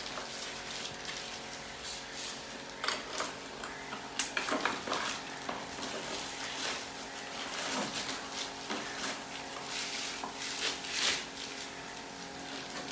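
Irregular clinks and knocks of metal tools and parts being handled, over a steady background hum.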